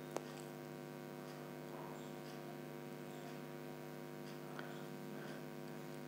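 Steady low electrical hum, like mains hum, with one short click just after the start.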